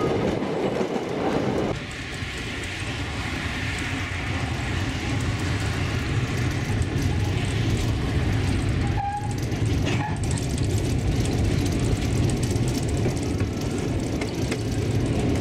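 Narrow-gauge train rolling along its track: a steady low rumble with the clickety-clack of the wheels over rail joints. The sound changes abruptly about two seconds in, and there is a brief squeak about nine seconds in.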